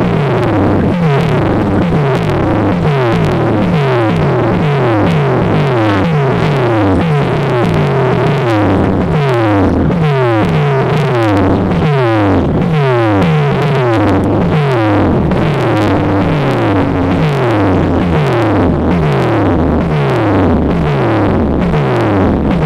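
Loud electronic dance music played on a DJ sound system: a synthesizer riff of repeated falling pitch glides, about two a second, over a steady deep bass.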